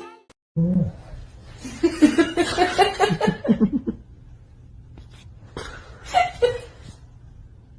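A person laughing hard in quick, rapid pulses for about two seconds, followed by a couple of shorter laughs or exclamations.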